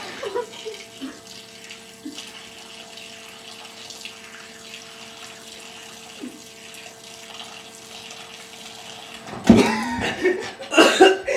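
Refrigerator water dispenser running: a steady hiss of water with the dispenser's steady hum, which cuts off about nine seconds in. Right after it stops comes a loud burst of sputtering and coughing from a person choking on the water.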